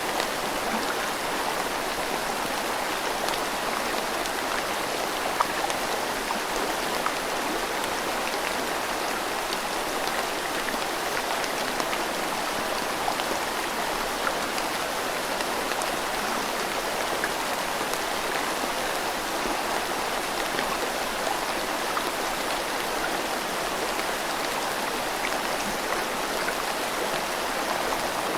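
Steady rain mixed with a flowing river: an even rush of water, with the patter of scattered raindrops.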